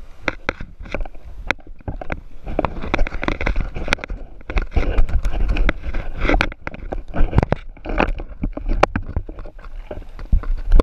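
GoPro camera housing knocking and rubbing against the scuba gear it is clipped to as the wearer moves: irregular clattering knocks over a constant low rumble.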